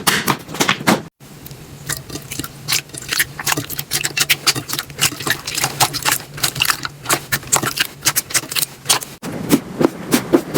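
Slime being squeezed and pressed by hand, giving a dense run of sharp crackling clicks and pops. The sound breaks off briefly about a second in and again near the end.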